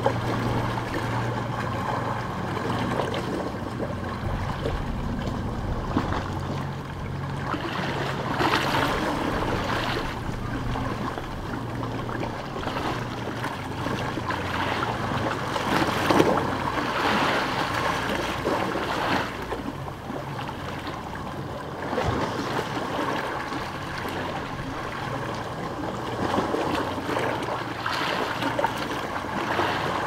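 Small waves lapping and washing against a stone beach, a steady wash of water that swells louder about eight seconds in, again around sixteen seconds, and near the end. A low steady hum lies underneath and fades out about halfway through.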